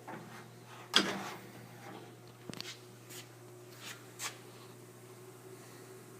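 A sharp knock about a second in, then a few lighter taps and clicks, over a faint steady hum.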